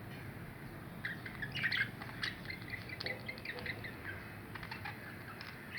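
Two budgerigars chattering and squawking: rapid short chirps and scratchy warbles, busiest from about a second in.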